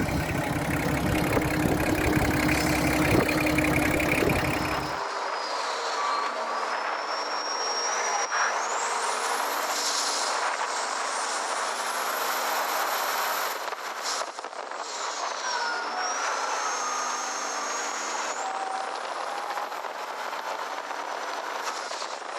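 Motor vehicle noise: for about five seconds a full, loud engine sound, then the low end drops out abruptly, leaving thinner noise with high whines that glide slowly up and down.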